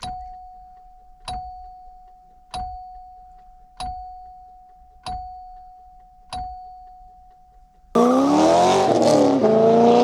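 Ford mechanical seatbelt warning chime, its solenoid-driven hammer striking the chime bar six times, about once every 1.25 s, each ding ringing out and fading. About eight seconds in, a car engine comes in suddenly and loud, accelerating with a rising pitch.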